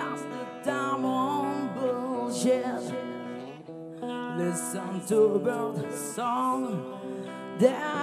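Live rock band playing: electric guitar and drums with cymbal hits, and a lead vocal singing over them.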